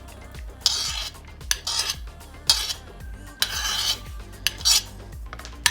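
Chopped vegetables being scraped and tipped into a bowl: a series of short scraping swishes and clinks of a utensil against the dish, with the longest near the middle.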